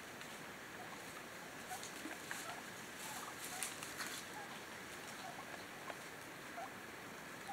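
Soft, short calls from a flock of wild turkeys foraging together, scattered about once a second over a steady background hiss, with a few faint clicks.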